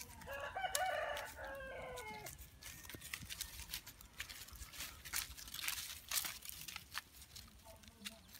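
A rooster crows once near the start, a call about two seconds long that falls away at the end. After it, dry leaves crackle and rustle underfoot with many short irregular clicks.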